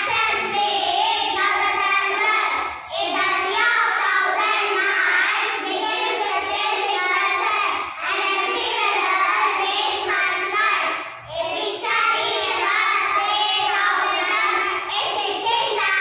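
A group of young girls chanting together in unison in a sing-song recitation, with short pauses for breath about three, eight and eleven seconds in.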